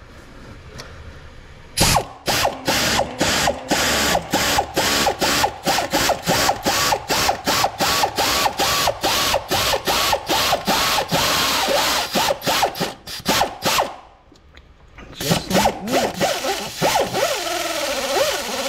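Pneumatic air ratchet driving a thread-cutting tap into the blown-out spark plug hole of a Ford 5.4 Triton aluminum cylinder head, re-threading it for a repair insert. It runs in a rapid stuttering rhythm of about three or four pulses a second, stops briefly near the end, then runs again.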